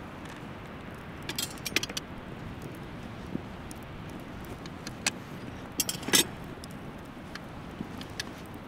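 Metal clinks and rattles from a cast-iron Dutch oven's wire bail handle as the pot is lifted and set down on a fire grate, the loudest clatter about six seconds in, over a steady low hiss.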